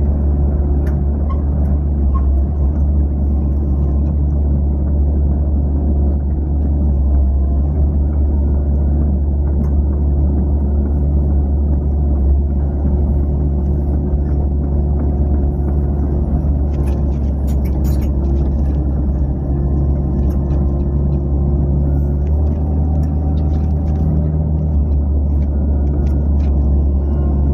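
Excavator's diesel engine running steadily, heard from inside the operator's cab as a constant low drone, with a few light clicks about two-thirds of the way through.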